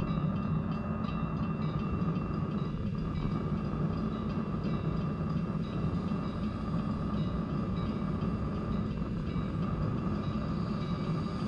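Steam locomotive rumbling low and steady as it creeps toward a road crossing, with the crossing-signal bell dinging in an even, rapid rhythm above it.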